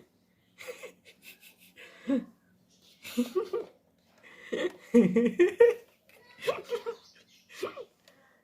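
Bursts of human laughter, in short pulsed fits, loudest about halfway through.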